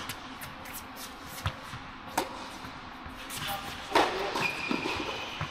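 Tennis rally on an indoor hard court: sharp racket-on-ball hits about a second and a half in and just after two seconds, then a loud hit at about four seconds, followed by a short, high squeak. The hits and squeak echo in the large hall.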